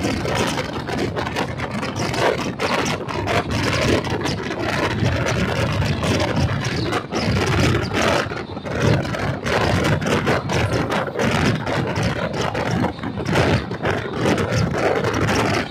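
Indian Railways express train running at speed, heard from its open doorway: a steady rumble of the wheels on the rails, broken by many sharp clacks.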